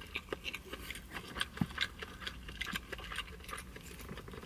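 Chewing a mouthful of crispy fried chicken close to the microphone: a string of small, irregular crunches and clicks.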